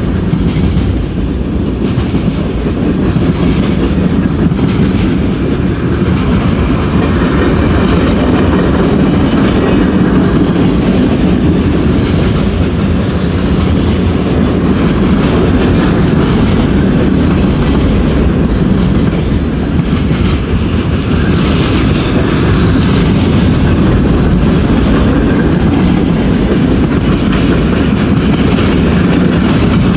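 Freight train cars rolling past: a loud, steady rumble of steel wheels on rail, with scattered clicks as the wheels cross rail joints.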